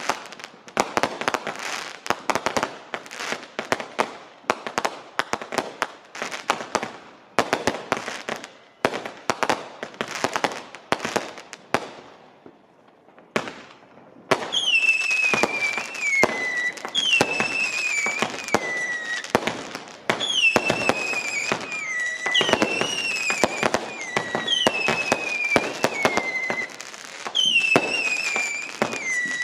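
Consumer firework cakes going off: rapid, dense crackling bangs of aerial shots, then a short lull about twelve seconds in. After the lull comes a string of falling whistles, one about every second and a half, among further bangs.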